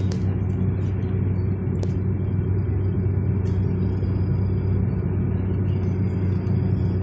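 Steady low rumble of a tram running along its track, heard from inside the car.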